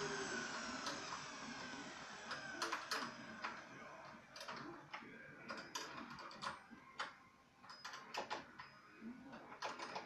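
Vacuum turbine motor winding down after switch-off, its whine falling in pitch and fading over the first two to three seconds. Then scattered metallic clicks and clinks of a wrench worked on the turbine's mounting bracket.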